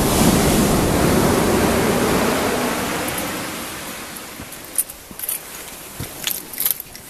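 Ocean surf: a wave washes in loudly and fades away over about four seconds. In the second half a few short, sharp clicks stand out over the quieter background.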